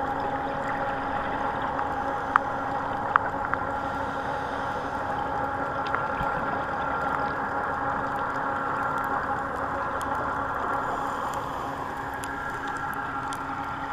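Boat engine droning steadily, heard underwater, with several fixed tones in its hum. A few sharp clicks come about two and three seconds in.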